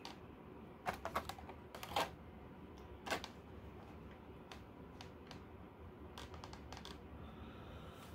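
Light clicks and taps of a toy's clear plastic blister packaging being handled and set down on a tabletop: a few sharp clicks in the first three seconds, then fainter ticks.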